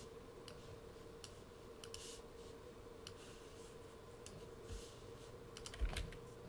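Scattered faint clicks from a computer mouse and keyboard in use, a dozen or so spread unevenly with a cluster near the end, over a steady faint hum.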